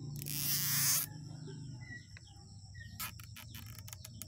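Cable tie being pulled tight around a grafted cutting: a zipping rasp lasting just under a second near the start, then a quick run of sharp clicks about three seconds in. Insects drone and birds chirp throughout.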